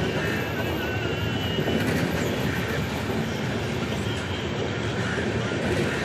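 Indian Railways express train running through at speed: a steady rumble and rattle of wheels on the rails, with a thin wavering squeal in the first couple of seconds.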